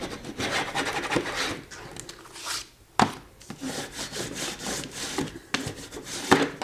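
Hands rubbing and sliding a glued paper cover over book board in irregular strokes, smoothing it down onto the board. Two sharp taps, about three seconds in and near the end.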